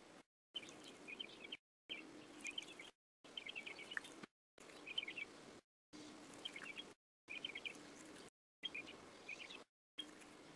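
Faint bird chirps in quick clusters of short, high notes over a low steady hum. The sound is chopped into snippets about a second long by abrupt cuts to silence.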